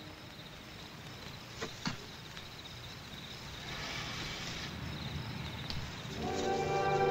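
Faint cricket chirping from a night-time soundtrack, with two soft clicks about two seconds in and a short hiss near the middle; about six seconds in, the episode's music score comes in and grows louder.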